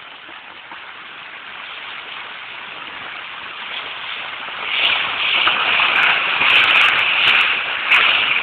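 Rushing, splashing floodwater after heavy rain, growing louder about five seconds in and easing near the end.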